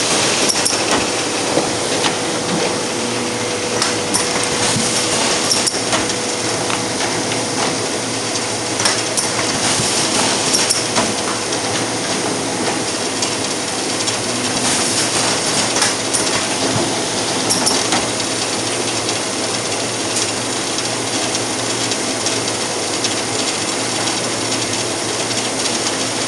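Tunkers sheet laminating machine running: a steady mechanical hum and rumble with irregular clicks and clacks from its feed mechanism and rollers as printed sheets go through.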